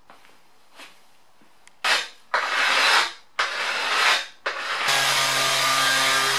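A hand scraper is drawn along an aluminium edge in four rasping strokes. About five seconds in, a random orbital sander starts and runs steadily against the aluminium sheet.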